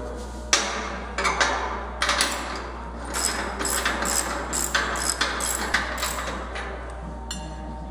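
A steel open-end wrench working a nut onto a bolt through a steel mounting bracket: irregular metal-on-metal clicks and clinks as the wrench is turned and refitted on the nut, fading near the end. A steady low hum sits underneath.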